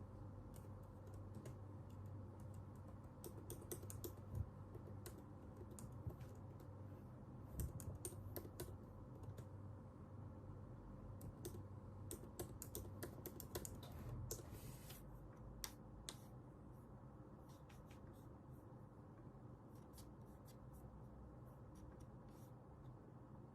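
Faint computer keyboard typing: irregular runs of keystroke clicks with short pauses between them, over a low steady hum.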